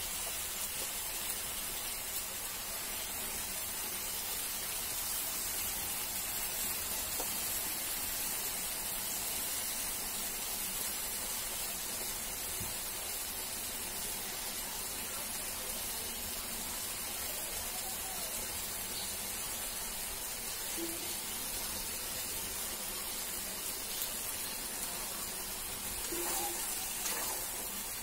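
Chopped vegetables sizzling steadily as they fry in an iron kadai, with a metal spatula starting to scrape and stir the pan near the end.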